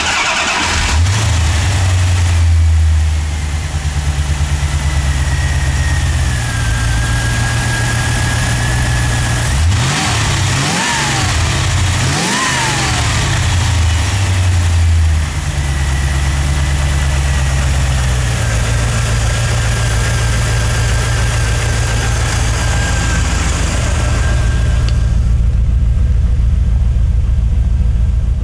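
1990 Corvette's 5.7 L L98 Tuned Port Injection V8 starting up about a second in and idling steadily, revved briefly twice near the middle, then settling back to idle. It sounds more muffled near the end.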